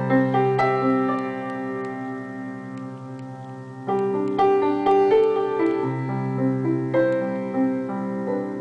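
Solo piano music played from an MP3 player through a breadboarded single-ended 6BQ5 (EL84) tube amplifier driving a loudspeaker: notes struck in phrases and left to ring, with a short lull just before four seconds in.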